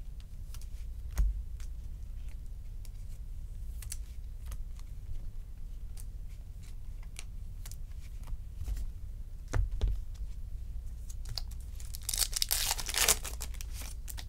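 Trading cards being handled and shuffled: a scatter of small clicks and card-on-card snaps, with dull knocks about a second in and again near ten seconds. About twelve seconds in comes a loud crinkling rip, a foil card-pack wrapper being torn open.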